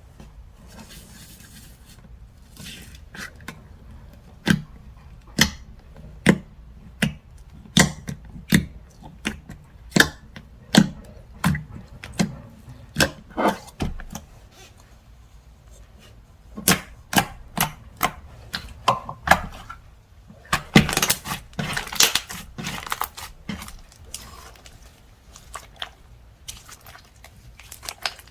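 Slime being pressed and worked by hand, giving sharp pops about once a second as trapped air bursts. About two-thirds of the way through there is a denser crackling stretch.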